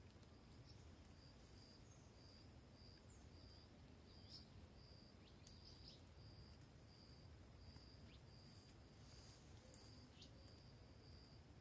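Near silence with faint outdoor background: an insect chirping in short, high-pitched pulses about twice a second, with a few brief bird chirps.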